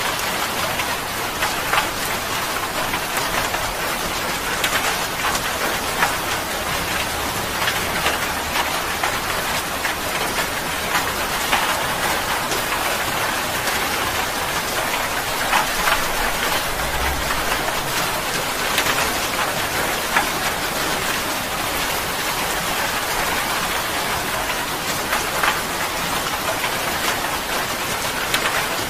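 Steady heavy rain falling, a dense hiss with scattered sharper drop splashes.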